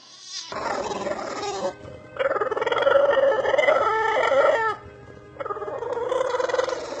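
English bulldog vocalising in three long, drawn-out, wavering calls, the middle one the longest and loudest.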